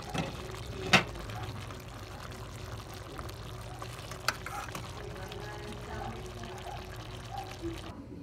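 A pot of chicken feet adobo simmering in its sauce, a steady bubbling hiss. Sharp clinks cut through it, the loudest about a second in and another just after four seconds. The sound drops away abruptly near the end.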